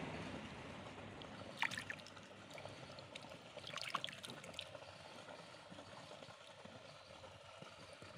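Water splashing and sloshing lightly as a hand stirs a shallow goldfish pond among crowding fish, with clusters of sharper splashes about two seconds and four seconds in, over a steady low hiss.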